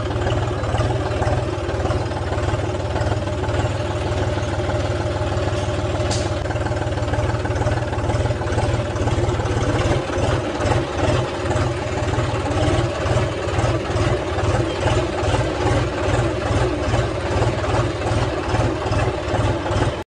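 John Deere 5050D tractor's three-cylinder diesel engine running steadily as the tractor is driven. From about halfway through, the sound pulses evenly at about two beats a second, and there is a single sharp click about six seconds in.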